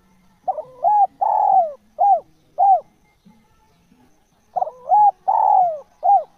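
Spotted dove cooing: two phrases of about five coos each, the third coo in each phrase long and falling in pitch. The phrases are roughly four seconds apart.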